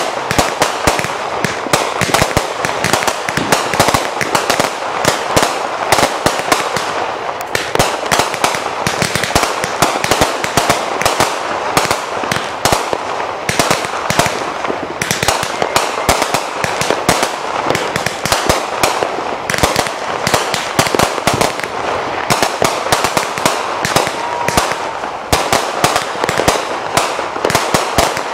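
Aerial fireworks going off in a continuous barrage: several sharp bangs and pops a second, running together into a dense crackle with no break.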